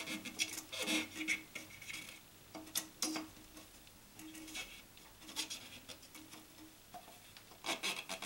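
Hands turning over a removed plastic toilet flush valve assembly and fingering its red rubber seal: faint, scattered rubbing and clicking of plastic and rubber, a few taps at a time.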